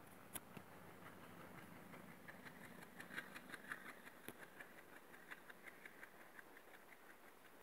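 Faint sound of a train passing: a WDG-3A diesel locomotive's engine running with a low hum, then the coach wheels clicking over the rail joints in a quick, irregular run. The clicking is densest about three to four seconds in and thins out near the end.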